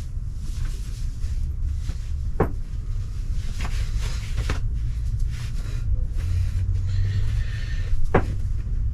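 Fabric rustling as a tank top is pulled on over the head and tugged straight, with four sharp knocks and a steady low rumble underneath.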